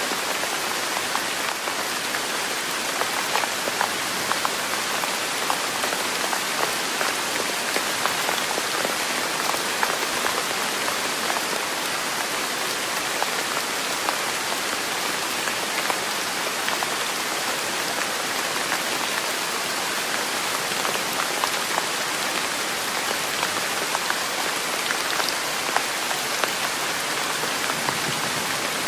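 Steady rain: an even hiss with many separate drop ticks scattered through it, unchanging throughout.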